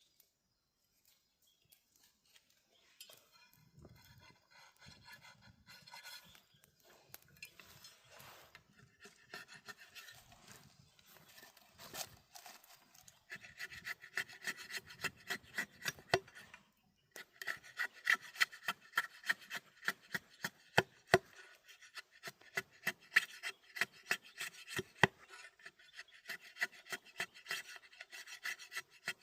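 Rapid, dry rasping and scraping strokes that grow louder about halfway in, break off briefly, then carry on.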